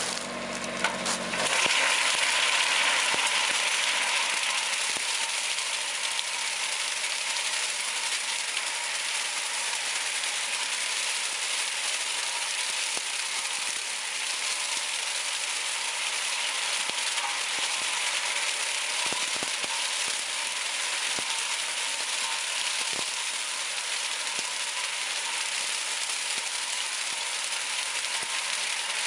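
Small sugarcane cutting machine running steadily as it cuts its way through standing cane: a continuous, even mechanical noise with a faint steady engine tone.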